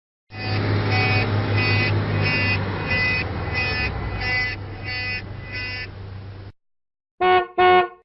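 Car-horn sound effects: a beeping horn or alarm pulsing about twice a second over a steady low rumble for about six seconds, then, after a short gap, two quick horn toots near the end.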